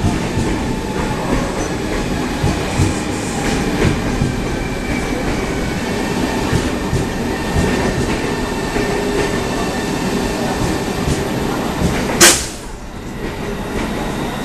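High-speed electric multiple unit rolling slowly along the platform as it pulls in: a steady rumble with scattered wheel clicks over the rail joints and a faint whine. About twelve seconds in comes a brief loud hiss, and the rumble then drops lower.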